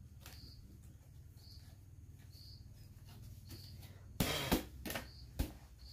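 A high, short chirp repeats about once a second over a faint low hum. About four seconds in, a louder burst of rustling and clatter breaks in, with a few sharp knocks.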